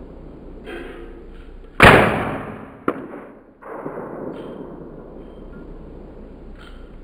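A single shot from a Colt M4 .22 LR rifle about two seconds in, with a tail that dies away over about a second, followed by a sharp click about a second later.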